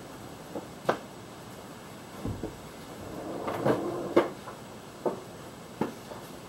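A handful of separate knocks and clunks of parts or tools being handled, the sharpest about a second in and about four seconds in, with a busier rattling stretch just before the second one.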